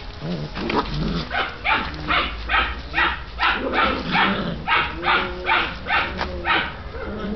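A dog barking over and over in quick, sharp barks, roughly two a second.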